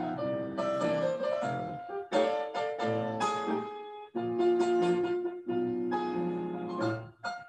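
Piano music: chords and a melody played at a moderate pace, notes struck in clusters with short gaps between phrases.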